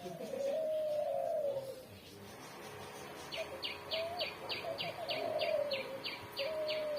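Spotted dove (terkukur) cooing in repeated low, curved phrases. From about halfway in, another bird adds a quick run of high, falling chirps, about three or four a second.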